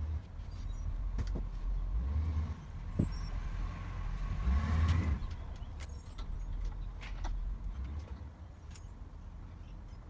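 Steel roller chain clinking in short knocks as it is handled and fed onto a cylinder mower's drive sprockets, over a low rumble that swells and fades about halfway through.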